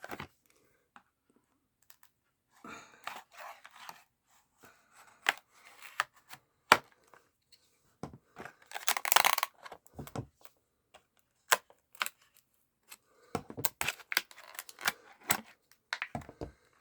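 A knife cutting open and tearing retail packaging, with scattered sharp clicks and crinkling handling noises and a longer tearing rasp about nine seconds in.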